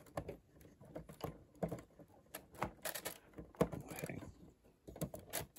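Irregular small clicks and taps of plastic LEGO bricks and plates being handled, with a few sharper knocks in the middle and near the end.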